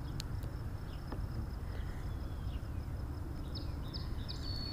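Outdoor lakeside ambience: a steady low rumble, a thin high insect drone, and a few short bird chirps near the end.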